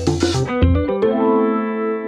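Background music: a quick run of plucked notes, then a held chord ringing on from about half a second in.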